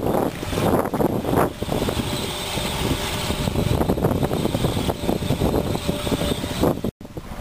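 2004 Honda Accord LX's 2.4-litre four-cylinder engine idling, heard from low beside the car, with wind buffeting the microphone. The sound cuts out for a moment near the end.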